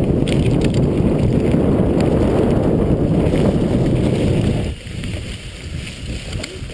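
Wind buffeting the microphone of an action camera on a mountain bike's handlebars, mixed with the noise of the tyres and frame on a rough grassy trail at speed. The noise drops suddenly to a lower level almost five seconds in.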